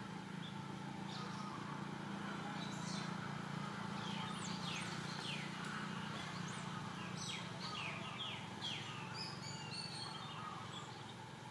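Outdoor animal calls: a run of short, high chirps that each drop quickly in pitch, clustered from about four seconds in, over a steady low hum.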